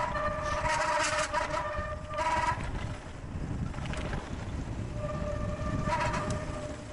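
Mountain bike descending a dirt trail at speed: wind buffeting the microphone and tyre rumble over the dirt, with a steady high whine from the bike coming in twice, for about three seconds and then for about a second and a half near the end.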